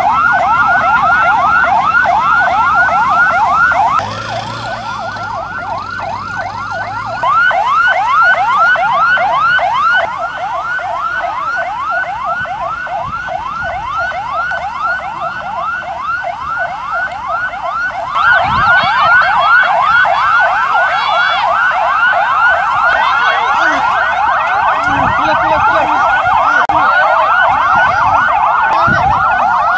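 Emergency vehicle sirens wailing in a fast yelp, several rising sweeps a second. More than one siren overlaps at times, and the loudness dips and returns a few times.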